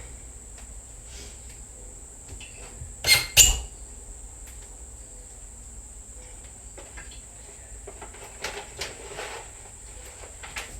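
Kitchen cupboard door knocking twice in quick succession a little over three seconds in, then faint rustling and small clicks as a packet of pasta is fetched from the cupboard.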